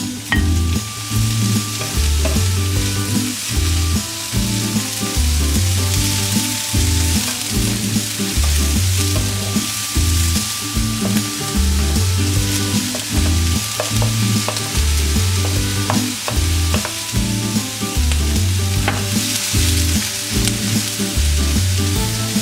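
Chicken gizzards sizzling as they are stir-fried in a hot pan, the hiss swelling twice as they are stirred. Background music with a repeating bass line plays underneath.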